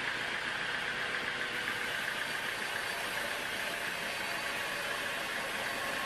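Large band sawmill running with its blade cutting through a teak log, making a steady, even hissing saw noise with no break.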